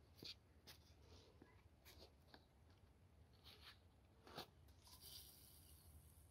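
Near silence, with faint scattered clicks of fishing tackle being handled, a slightly louder tick about four and a half seconds in, and a short high hiss about five seconds in as a spinning rod is cast.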